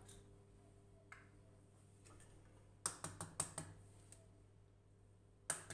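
Light clicks and taps of eggs and bowls being handled at a kitchen counter: one click about a second in, a quick run of about five near the middle, and one more near the end.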